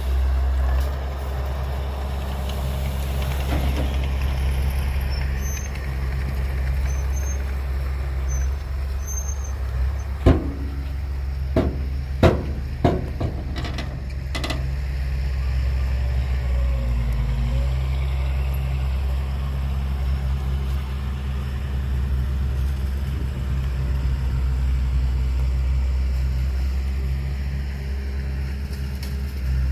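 Heavy diesel engine running steadily with a deep low drone. Around the middle there are several sharp knocks or clanks.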